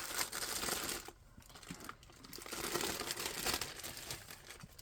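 Plastic wrapping bag around a keyboard crinkling as it is handled and pulled off. It comes in two spells, a short one in the first second and a longer one from about two to four seconds in.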